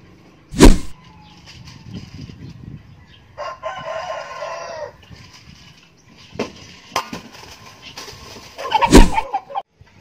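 Two sharp air rifle shots, about eight seconds apart, fired at a rooster. Between them the rooster gives one pitched call lasting about a second and a half.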